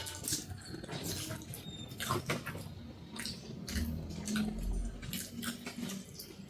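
Close-up eating sounds: wet chewing and lip-smacking, a quick run of irregular moist clicks, as soft millet dhido is eaten.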